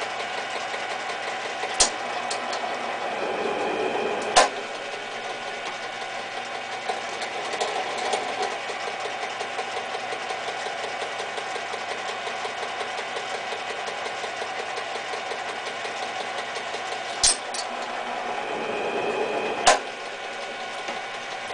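Minilathe running steadily through its gears while the carriage feeds a single-point threading cut. Four sharp metallic clicks come in two pairs, typical of the dog clutch engaging and then tripping at the carriage stop on each pass.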